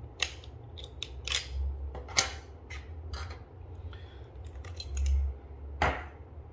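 Hard plastic clicks and snaps as a soap dispenser's battery cover is pried off and AA batteries are pulled from their holder, with handling rubs between. The clicks come irregularly, several seconds apart, and one of the loudest comes near the end.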